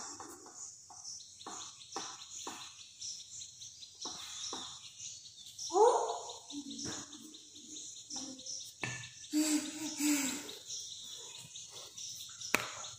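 Wooden rolling pin knocking and rolling over a stone rolling board as roti dough is rolled out, in short irregular strokes. A short rising squeak about six seconds in, with a steady high chirping in the background.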